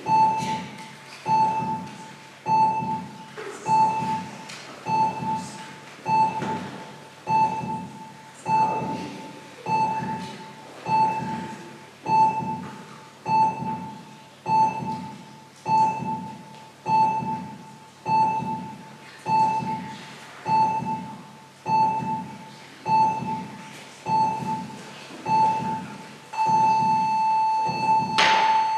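Heart monitor sound effect beeping steadily about once every 1.2 seconds, each beep paired with a heartbeat thump. About two seconds before the end the beeps merge into one continuous tone, a flatline signalling that the patient's heart has stopped. A short sharp noise comes just before the end.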